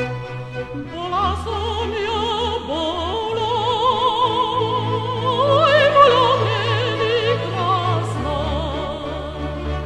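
Female operatic voice singing with wide vibrato over orchestral accompaniment; the voice enters about a second in, after a short orchestral passage.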